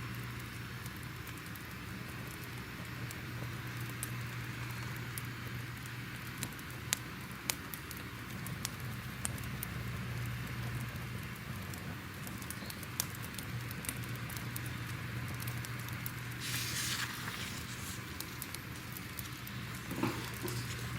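Crackling fire ambience: a steady hiss with irregular sharp pops and snaps over a low steady hum. A brief, louder rush of noise comes about three quarters of the way through.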